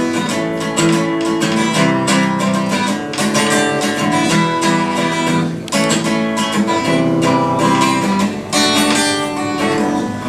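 Acoustic guitar strummed in a steady run of chords: an instrumental passage of a song played live.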